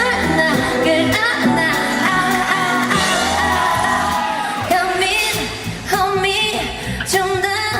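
Korean pop song: a singer's held, wavering notes over a backing track.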